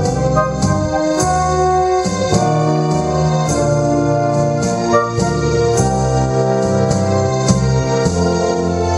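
Instrumental backing music without singing: sustained organ-like keyboard chords changing every second or so, with frequent light percussive accents over them.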